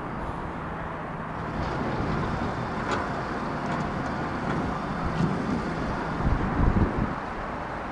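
Jet aircraft engines heard at a distance as a steady rushing noise, with wind buffeting the microphone in gusts, strongest a little before the end.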